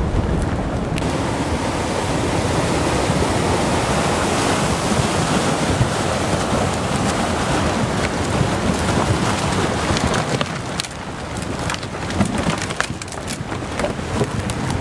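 Flash flood debris flow: muddy floodwater pushing a mat of driftwood and branches along, making a steady rushing noise. Many sharp clicks and cracks come through in the last few seconds.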